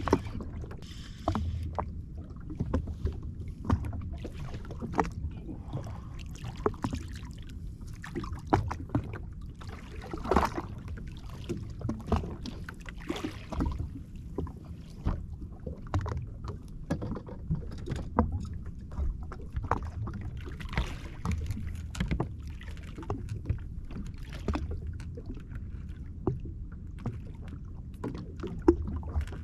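Small waves lapping and slapping against the hull of a drifting jet ski, with scattered short knocks and clicks of rod and gear being handled on board.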